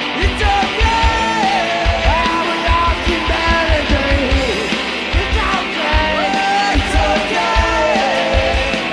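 Garage rock band playing live: guitars and drums with a steady kick-drum beat, and a male lead vocal singing held, sliding notes.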